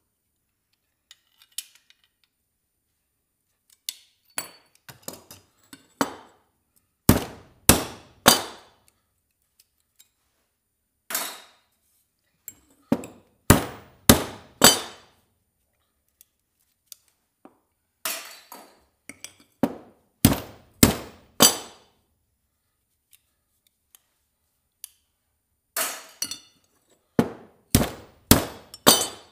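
Hammer blows on metal scrap, sharp strikes coming in irregular clusters of two to four with pauses between, each ringing briefly.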